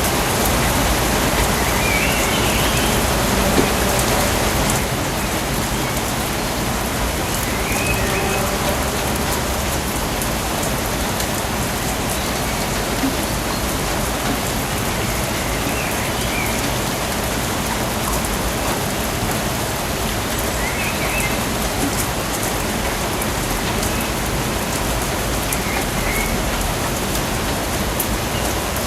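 Steady rain falling in a rainforest, an even hiss of drops on leaves and surfaces, dropping slightly in level about five seconds in. Faint short calls sound every few seconds above the rain.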